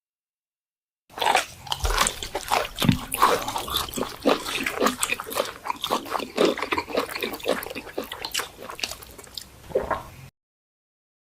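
Stomach growling and gurgling: a dense run of short gurgles with quick rising and falling pitch. It starts about a second in and cuts off suddenly near the end.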